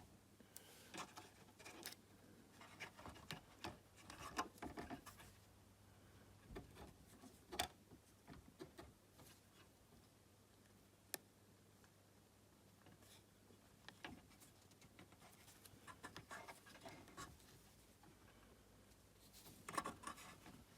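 Faint hand-handling noises of small parts and tape: scattered light clicks, rubs and scratches, with a single sharp tick about eleven seconds in.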